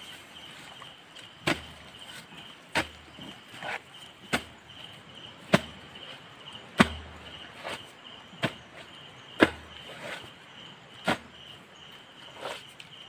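Digging tool striking and gouging into wet mud at a crab burrow, about a dozen sharp hits at roughly one a second, some with a dull thud. Insects chirp steadily behind them.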